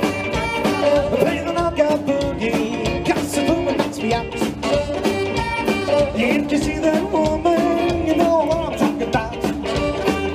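Live rock 'n' roll band playing an instrumental break with a steady, driving beat: electric guitars, upright bass, drums and saxophone, with a lead line sliding up and down over the rhythm.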